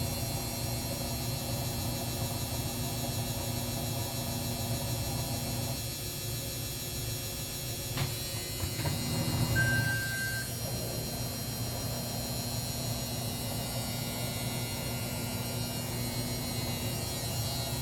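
GE washer-dryer humming steadily, with a single click about eight seconds in followed by a short, high electronic beep.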